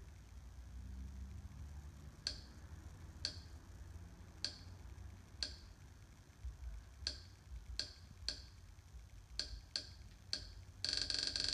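About ten short, sharp clicks, unevenly spaced roughly a second apart, as a Kodi media-centre menu is stepped through with a remote. Near the end a louder, steady sound with several tones begins.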